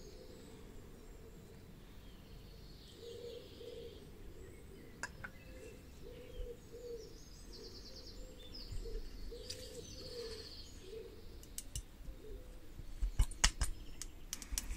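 Faint bird chirping and trills in the background, with light clicks and knocks of metal parts being handled as a hair drier's handle is fitted into its shell, the loudest clicks coming as a cluster near the end.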